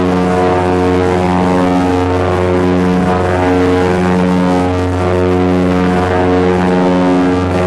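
Small propeller plane's engine and propellers running at takeoff power during the takeoff roll, heard from inside the cockpit: a loud, steady drone that swells and fades slowly about once a second.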